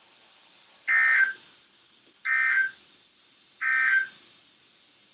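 NOAA Weather Radio Emergency Alert System end-of-message signal: three short digital data bursts about a second and a half apart, marking the end of the severe thunderstorm warning broadcast.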